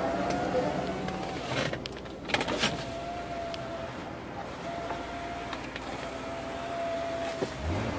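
Electric power-window motor of a 1983 Cadillac Seville running as the door glass moves. It gives a steady whine in four separate runs that stop and start, with a few clicks between the first runs. The car's engine idles underneath as a low hum.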